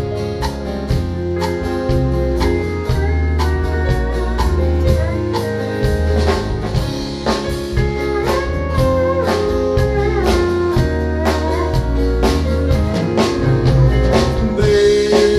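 Live country band playing an instrumental break between verses: a lead guitar solo with bent notes over bass and drums.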